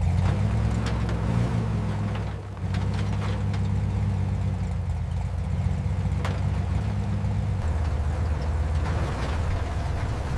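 A motor running steadily at a low pitch. It starts suddenly and dips briefly about two and a half seconds in.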